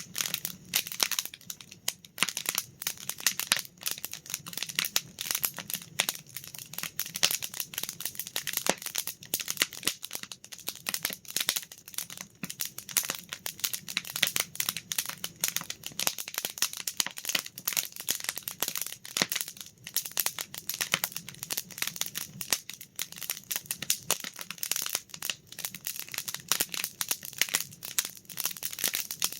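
Campfire crackling steadily, a dense run of sharp snaps and pops.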